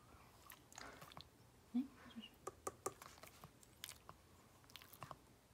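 Shih tzu licking and smacking its lips: a faint, irregular string of soft wet clicks.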